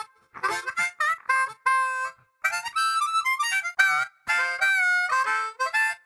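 Outro music: a harmonica playing a melody in short phrases of notes and chords, broken by brief gaps.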